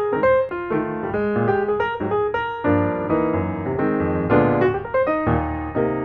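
Piano music: a quick run of single notes, with fuller chords through the middle.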